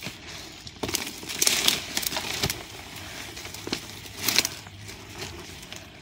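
Footsteps crunching and crackling through dry leaf litter and brushing past undergrowth, in irregular bursts.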